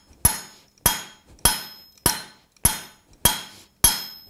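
Hand hammer striking a red-hot steel bar on an anvil: seven steady blows, about one every 0.6 seconds, each with a short metallic ring. The bar is being flattened over a step to form the boss of flat jaw tongs.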